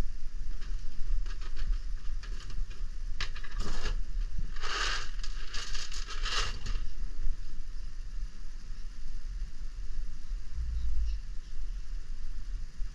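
Rustling and crinkling of something being handled: several short bursts about three to seven seconds in, over a steady low rumble.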